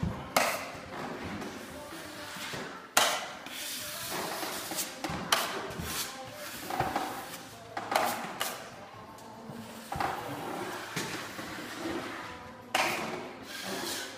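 Drywall knife scraping joint compound along a Strait Flex joint tape in repeated strokes, each starting sharply and fading, roughly every one to two seconds.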